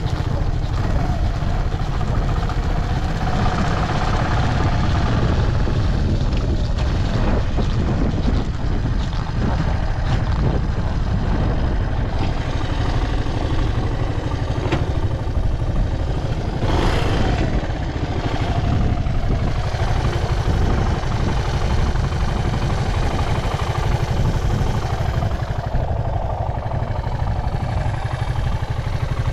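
Suzuki Djebel 125 (SF44A) single-cylinder four-stroke engine idling steadily, running with no abnormal noise. A short rushing noise is heard about halfway through.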